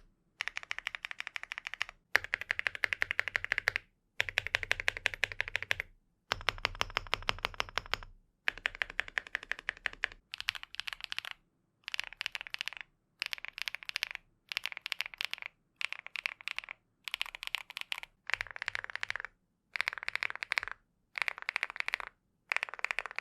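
Fast typing on a mechanical keyboard fitted with Cerakey ceramic keycaps, a clacky sound. It comes in runs of rapid keystrokes with short breaks between them; the runs get shorter after about ten seconds.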